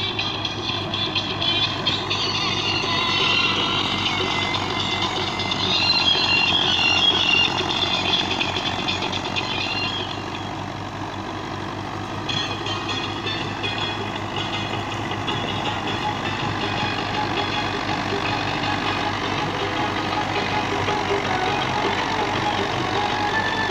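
Belarus 510 tractor's diesel engine running steadily as it pulls and drives a Jaggatjit straw reaper, with the reaper's chopping machinery running along with it in one continuous mechanical din.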